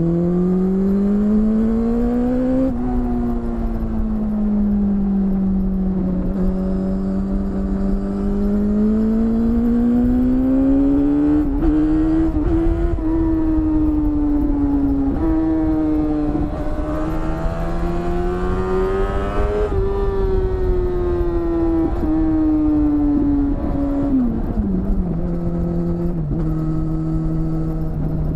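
BMW S1000RR inline-four engine running through an aftermarket Akrapovič exhaust under hard riding. It rises in pitch through the gears with short drops at the shifts, then eases off and settles to a steady, lower cruising note near the end.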